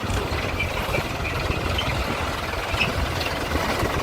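A heavy diesel engine idling steadily.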